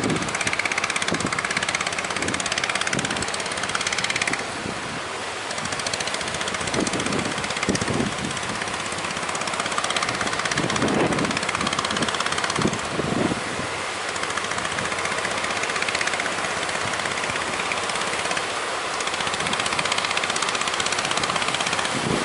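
Speedboat under way at sea: steady engine and wind noise, broken by short, low thumps every second or two.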